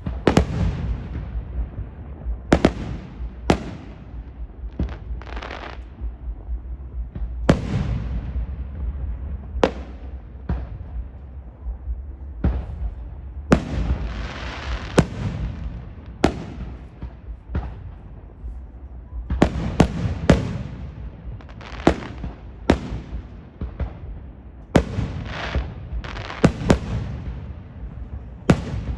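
Fireworks going off: a long, irregular string of sharp bangs, some trailing off in an echo, over a steady low rumble. The bangs crowd together about two-thirds of the way through and again near the end.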